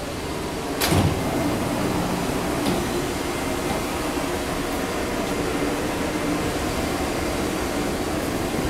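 Steady hum of a Taipei Metro C381 train standing at the platform with its doors open, with a short knock about a second in.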